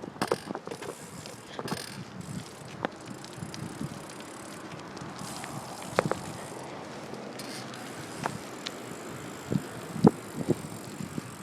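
A 2011 Verde Vex XL BMX bike being ridden: steady rolling noise with scattered, irregular clicks and knocks from the bike.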